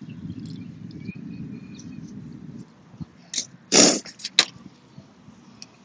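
Boiled crawfish being handled and shells cracked over an aluminium foil pan: a loud short crackle just before four seconds in, another soon after, then small scattered clicks. For the first few seconds a steady low rumble lies under it.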